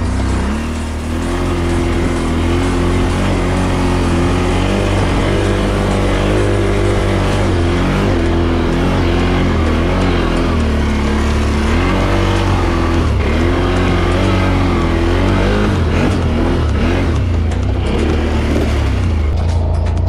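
Off-road vehicle engine running and revving up and down over and over, its pitch rising and falling above a steady low rumble.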